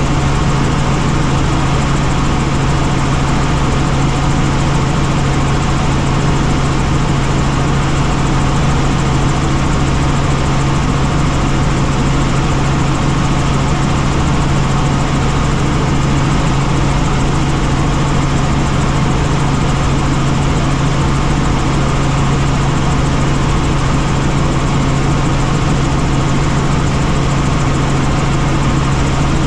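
Helicopter in flight: a steady, unchanging drone of engine and rotor, with a strong low hum under a wide hiss.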